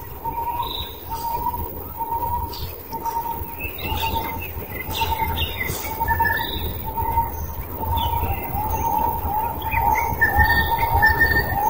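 Forest birds calling: one bird repeats a short note about twice a second, faster in the second half, while other birds chirp higher over it, above a low rumble.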